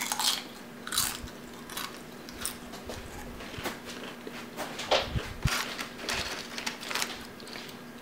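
Tortilla chip with salsa being bitten and chewed: a string of irregular crisp crunches.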